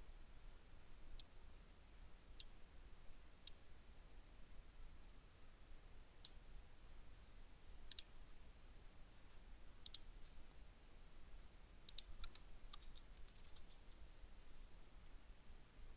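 Faint clicks of a computer mouse and keyboard: single clicks every second or two, then a quick run of keystrokes about three-quarters of the way through.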